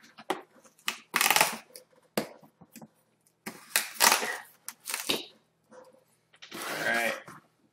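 A knife slicing through the packing tape and cardboard of a shipping box in several scraping strokes, then tape tearing as the flap is pulled open near the end.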